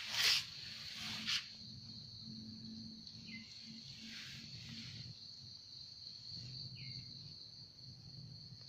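Insects chirring in a steady, high, even drone. Two short noisy bursts come near the start, the first the loudest.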